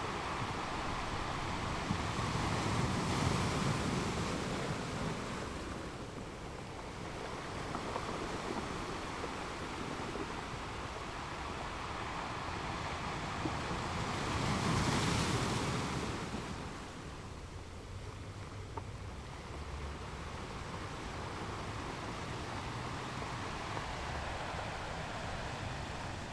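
Ocean waves washing onto a shore: a continuous surf hiss that swells twice as waves break, a few seconds in and again about halfway through.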